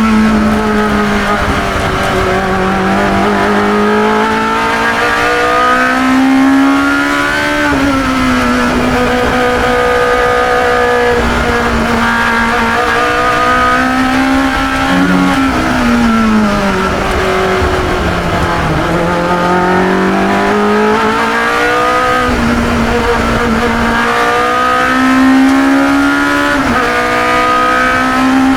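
A 1972 Chevron B21 2-litre sports racing car's engine at racing speed, heard from on board: the pitch climbs under hard acceleration and drops sharply at upshifts about eight seconds in and again near the end, and falls away in the middle as the car slows for a corner.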